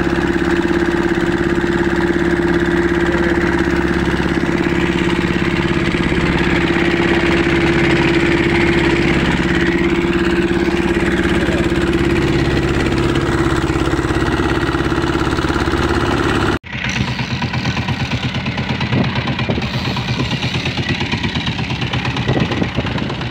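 Fishing boat's engine running steadily while the boat trolls, with wind and water noise. About two-thirds through, the sound cuts out abruptly and resumes as a lower, throbbing engine beat.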